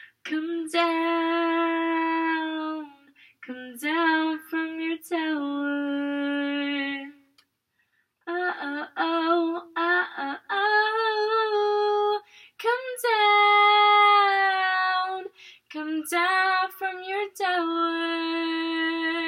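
A young woman singing a cappella into a handheld microphone: long held notes in several phrases, with short silent breaks between them and no backing music.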